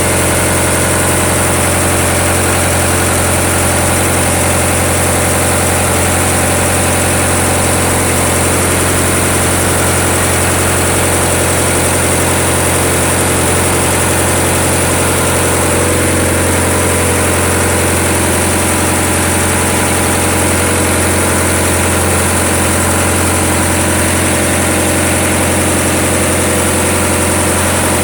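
A ship's diesel generator engine running steadily at constant speed, with a steady high hiss over the engine's hum.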